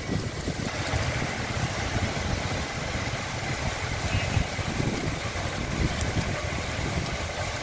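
Heavy rain falling steadily, with the small engines of auto-rickshaws running as they pass through flood water.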